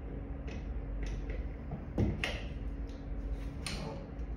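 Several short clicks and knocks of a plastic trolley wheel being worked and pushed onto the frame's metal axle rod, the loudest about two seconds in. A click like this is the sign that the wheel has snapped into place and is properly fitted.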